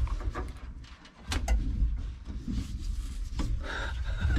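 Knocking, rubbing handling noise with a few sharp clicks from hands working at a pickup's steering wheel and wiring.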